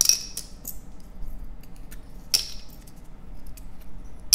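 Small clear jars of Swarovski crystal rhinestones being picked up and set down on the table, the stones clinking and rattling inside. Three sharp clinks with a short bright ring: one at the start, one about two seconds in, one near the end.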